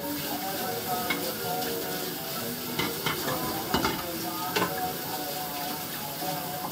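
Kitchen tap running water into the sink, a steady hiss that starts and stops abruptly, with a few clinks of dishes about three and four and a half seconds in.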